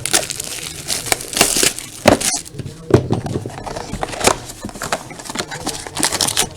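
Wrapping and card packs crinkling and tearing with irregular handling knocks as a sealed box of trading cards is opened.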